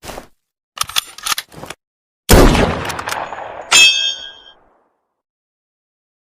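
A few quick mechanical clicks, then a loud shot with a long fading tail about two seconds in, followed by a sharp metallic clang that rings briefly.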